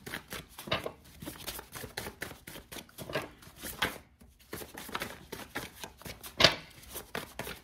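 A deck of cards being shuffled by hand: a quick, irregular run of card slaps and flicks, with one sharper snap about six and a half seconds in.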